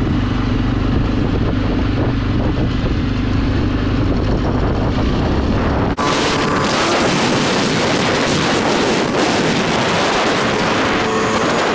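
Suzuki KingQuad ATV engine running steadily while cruising on pavement, heard from the rider's seat. About six seconds in the sound changes abruptly: loud wind rushing over the microphone takes over, with the engine underneath.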